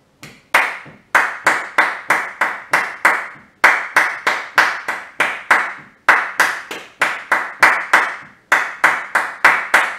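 Hand claps beating out the bachata rhythm, about three claps a second, in a short phrase that repeats four times with a brief break between phrases.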